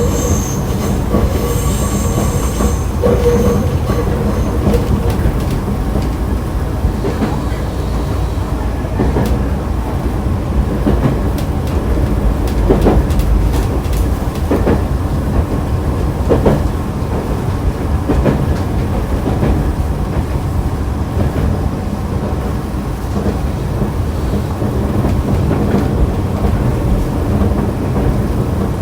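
Electric commuter train running, heard from on board: a steady rumble of wheels on rail with irregular clicks and knocks from rail joints. A high wheel squeal sounds for the first few seconds.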